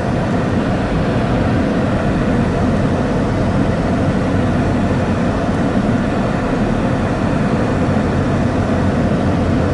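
Steady cabin noise of a car driving slowly: a low engine and tyre rumble under an even hiss.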